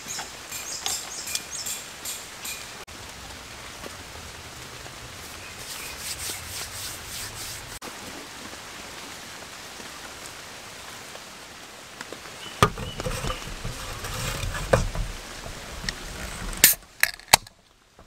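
Steady rain falling on the forest and tarp, with several sharp clicks and knocks of camp gear being handled in the last few seconds.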